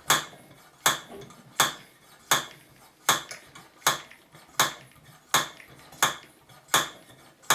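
Hand plunger pump of a 1930s Tilley TL14 paraffin pressure lamp being worked, a sharp metallic clack at each stroke, about ten strokes evenly spaced at a little more than one a second, building pressure in the paraffin tank.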